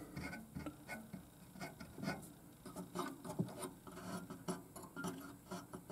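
Faint rubbing and scattered light scratchy ticks of a hand brushing through wire bundles and touching components on a pinball machine's circuit board.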